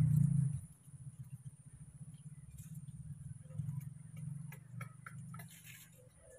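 A small engine running, a low rapid ticking pulse that is loud for the first half second and then fainter, with a few faint clicks and rustles.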